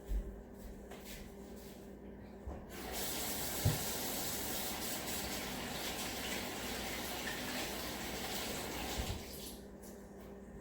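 Water running from a tap in a steady stream for about six seconds, starting about three seconds in and shut off shortly before the end, with a few soft knocks before it.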